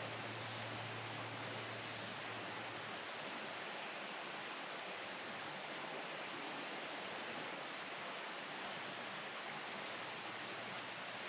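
Steady outdoor creekside ambience: an even hiss, with faint high chirps now and then and a low hum that fades out about two seconds in.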